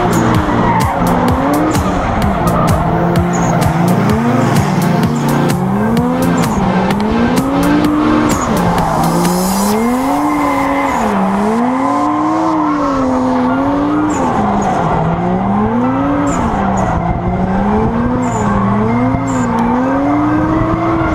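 A drift car's engine revving up and falling back over and over, its pitch rising and dropping about every two seconds, with tyres squealing as the car slides through the course.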